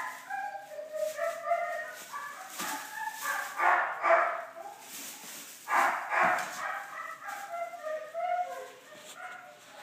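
High-pitched animal cries, many short calls overlapping without a break, with a few louder rustling noises around four and six seconds in.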